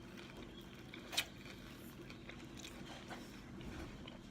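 A person chewing a mouthful of club sub sandwich, with a few soft mouth clicks, the sharpest about a second in.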